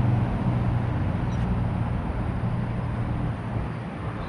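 A steady low engine hum that slowly fades near the end.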